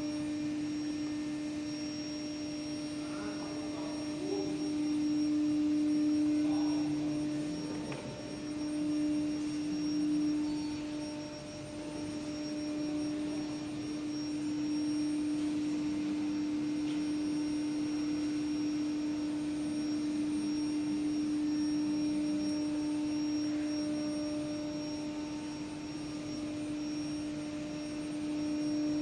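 Steady machine hum: one constant mid-low pitched drone with fainter overtones over a background of noise, from factory equipment, with a few faint irregular sounds in the first half.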